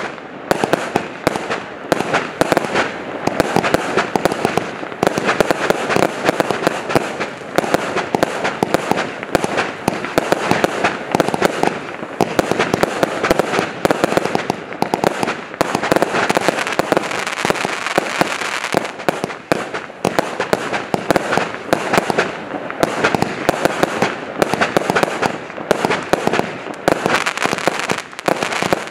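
Multishot compound firework cake firing continuously: a dense, unbroken run of shots and aerial bursts.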